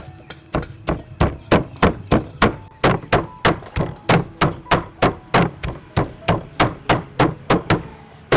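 Cleavers chopping raw pork into mince on a round wooden chopping block: a steady run of hard thunks, about three a second, starting about half a second in.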